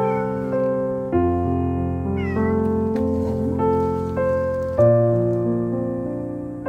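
A cat meowing in short calls, near the start and again about two seconds in, over steady background piano music, which is the louder sound.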